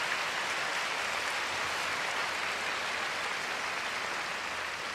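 A large arena crowd applauding, a steady mass of clapping that eases off slightly near the end.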